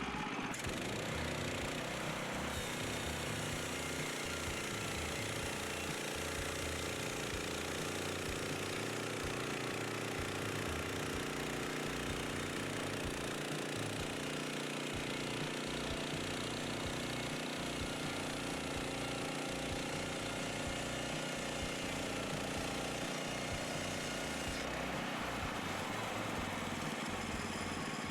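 Woodland Mills HM122 portable band sawmill's gas engine running steadily.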